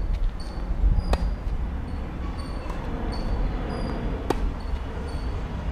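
Tennis ball struck by rackets and bouncing on a hard court: a few sharp knocks, the loudest about four seconds in as the near player hits a forehand.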